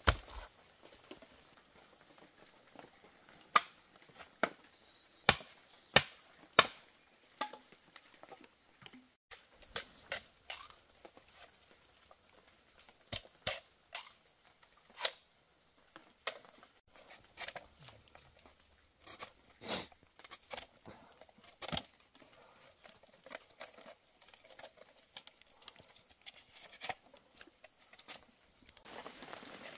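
Irregular sharp knocks and clicks, several loud ones close together a few seconds in and scattered ones after. A faint short high chirp repeats about once a second in the background.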